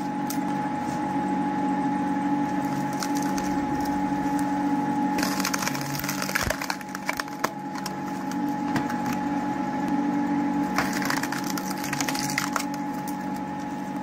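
A homemade log splitter runs with a steady motor hum while its ram forces a log through a multi-blade splitting wedge. The wood cracks and splinters as it breaks into sticks, with thicker crackling about five seconds in and again about eleven seconds in.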